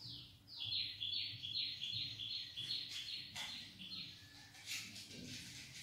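A bird chirping: a rapid run of short, high notes, about four or five a second, that stops after about three and a half seconds. A couple of short scratchy sounds follow near the end.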